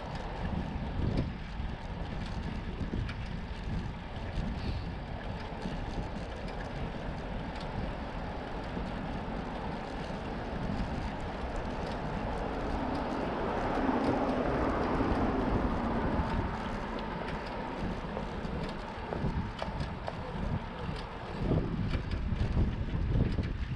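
Wind buffeting a handlebar-mounted action camera's microphone on a moving bicycle, over a steady rumble of the ride along the street. The noise swells for a few seconds about halfway through.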